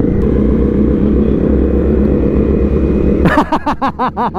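Honda CRF250 Rally's single-cylinder engine running at a steady cruise, with wind and tyre noise on a paving-block road. About three seconds in the steady sound cuts off abruptly and a quickly rising-and-falling pitched sound takes over.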